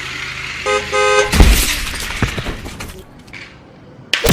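Two short horn toots, then a loud crash that rattles away over a second or so, with another sudden burst near the end.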